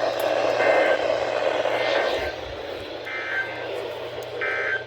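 Weather radio receiver static hiss between announcements, weakening a little about two seconds in. Three short bursts of two-tone data signal come through it, about a second in, past the middle and near the end.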